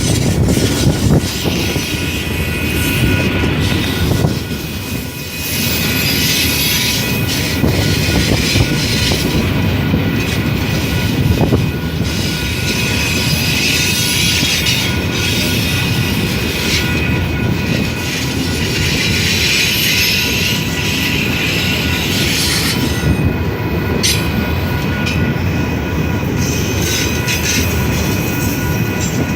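Union Pacific train rolling past, a steady loud rumble and clatter of the cars on the rails with a thin, steady wheel squeal over it.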